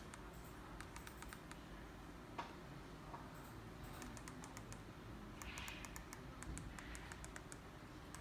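Faint, irregular clicking of keys being pressed in quick runs, like typing, busiest in the second half.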